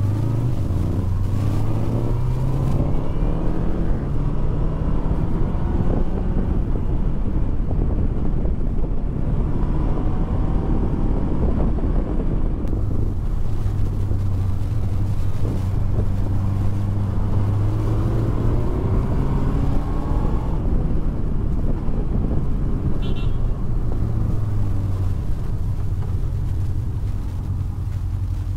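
Honda motorcycle engine running in stop-start traffic, its pitch rising and falling again and again as the bike accelerates and eases off, over steady road and wind noise.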